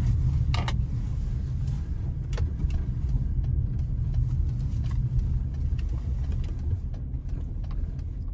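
A car's low, steady rumble of engine and tyres heard from inside the cabin as it rolls slowly into a parking lot, with a few scattered light clicks.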